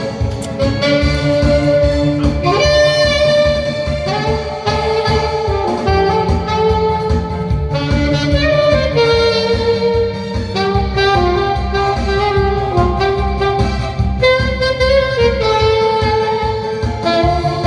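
Saxophone playing a song melody with vibrato over an accompaniment with a steady beat.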